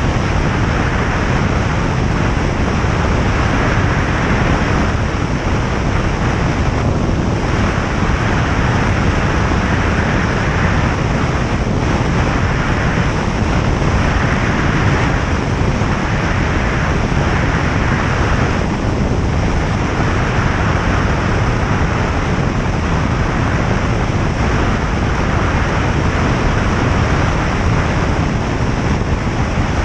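Single-engine light aircraft in flight, heard from inside the cabin: the piston engine and propeller run steadily under a loud, even rush of airflow.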